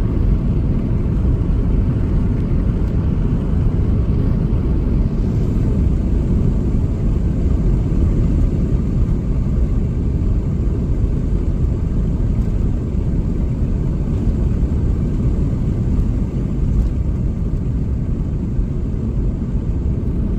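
Steady low rumble of a car driving, road and engine noise heard from inside the vehicle.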